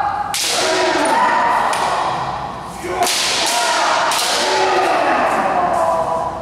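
Bamboo shinai cracking against kendo armour: one strike about a third of a second in, then a quick run of strikes around the middle. Long, drawn-out kiai shouts from the fencers run over them.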